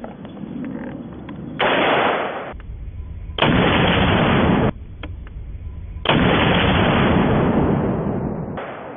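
Three shots from a Bushmaster AR-15 rifle, roughly two seconds apart. Each begins with a sharp crack and is followed by a second or more of loud rumble; the last one dies away slowly.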